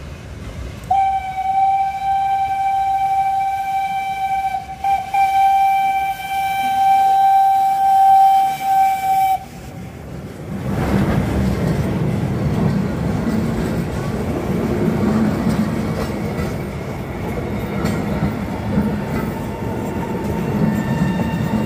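FS Gr.740 steam locomotive's whistle blown in one long blast of about eight seconds at a single steady pitch, with a brief dip about halfway. The locomotive and its historic coaches then roll past close by in a steady noise of wheels on rails.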